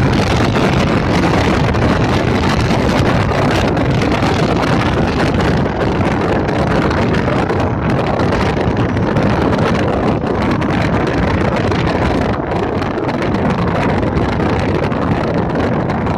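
Wind rushing and buffeting over the microphone of a camera held at the open window of a moving car, over the car's steady road noise.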